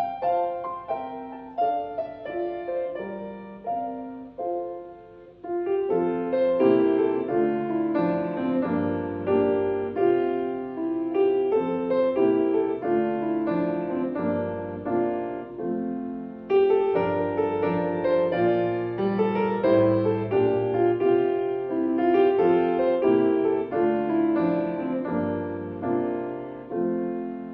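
Solo piano playing a slow hymn tune, sparse at first and fuller with bass notes from about five seconds in, fading out near the end.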